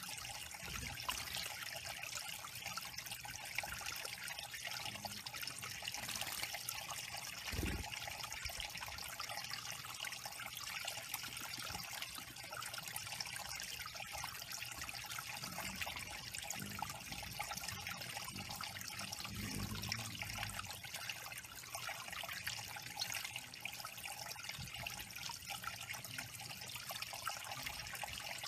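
Small backyard waterfall trickling steadily over stacked stones into a shallow pebble-lined pool.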